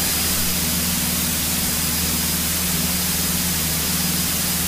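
Steady drone of a light single-engine airplane's piston engine and propeller at climb power, heard inside the cabin over a strong even hiss of airflow.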